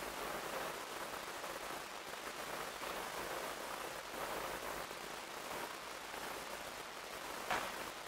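Steady outdoor background hiss with no distinct calls, and one short sharp click near the end.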